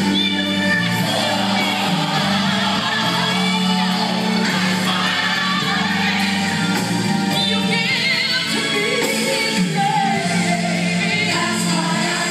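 Gospel song playing for a praise dance: sung vocals with backing voices holding long, wavering notes over sustained accompaniment.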